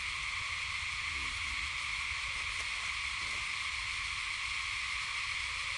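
Steady high-pitched drone of forest insects, with a low rumble underneath.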